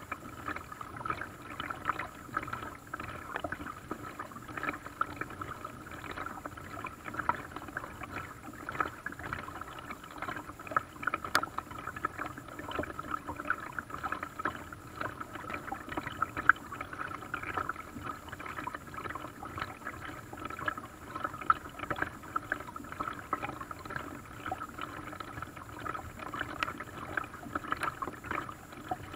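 Paddled boat on open water: water splashing and dripping around the paddle and hull in many small, irregular splashes.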